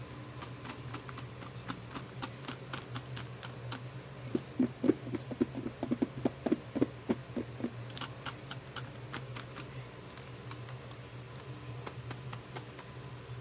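Fingers tapping, pressing and rubbing on the clear plastic wrapping of a pack of plastic toy accessories, making light crinkles and clicks. A run of louder, quicker taps comes between about four and eight seconds in, over a steady low hum.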